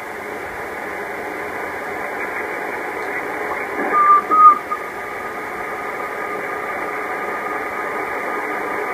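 Radio receiver hiss: steady static from the band between transmissions, limited to a narrow voice bandwidth. About four seconds in, a brief wavering whistle-like tone breaks through.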